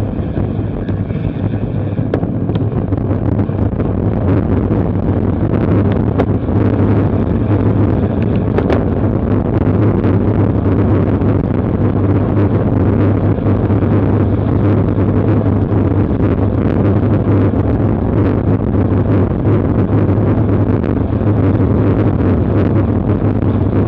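Loud, steady wind rushing and buffeting over the microphone of a camera on a road bike ridden at about 30 mph, with road-bike tyres on a wet road underneath.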